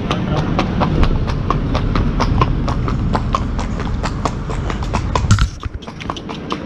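A horse's hooves clip-clopping in a steady walking rhythm on a paved road, over a low rumble. A single loud knock comes just past five seconds in, and the hoofbeats are fainter for about a second after it.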